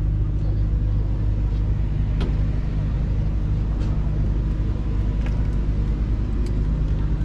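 A motor vehicle's engine running steadily, a low rumble, with a few faint clicks over it.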